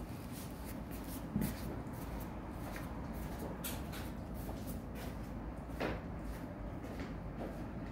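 A cat eating from a raised ceramic bowl: a scatter of short, irregular crunching clicks. There is a dull knock about a second and a half in and another near six seconds.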